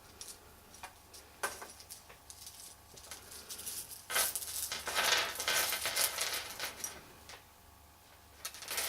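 Beads and bead ends tipped out of a container, clattering and clinking against each other: a few scattered clicks, then a dense clatter about four seconds in lasting a few seconds, and another short clatter near the end.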